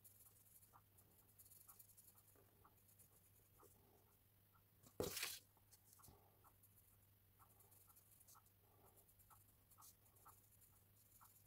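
Faint scratching of a Wolff's carbon pencil on hot-pressed paper, drawn in short light strokes. About five seconds in there is one brief, louder paper rustle as a printed reference photo is slid across the drawing sheet.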